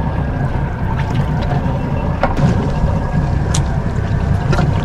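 Steady low rumble of wind on the microphone and the boat on the water as it drifts, with a faint low hum and a few light ticks.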